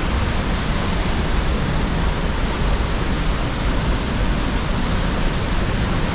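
Steady roar of the Rhine Falls, a large river waterfall: a loud, unbroken rush of falling water, heaviest in the low rumble.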